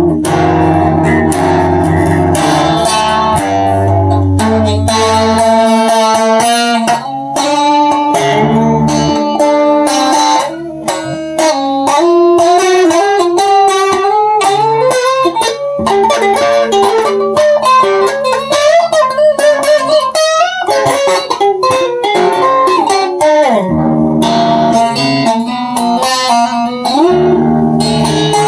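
Guitar music: a melody of quick plucked notes over a bass line.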